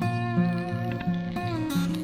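Background music: a plucked-string melody over a stepping bass line, with one held note sliding down in pitch partway through.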